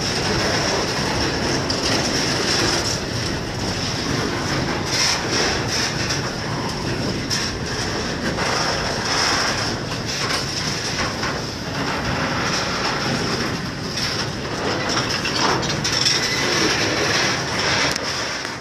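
Container wagons of a freight train rolling past during shunting: steady rumble of the wheels with irregular clacks over rail joints and a continuous high-pitched wheel squeal.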